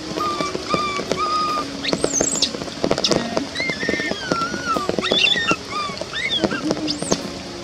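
Baby macaque crying: a run of short high-pitched whimpering calls that bend up and down, with two sharper shrill squeals, about two seconds in and near the end.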